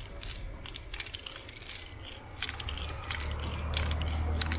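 Aerosol spray paint can spraying onto a wall in short, irregular hissing spurts. A low steady rumble comes up about halfway through.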